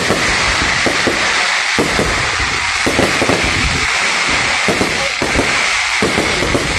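Fireworks display: aerial shells going off in rapid, irregular bangs over a continuous crackling hiss.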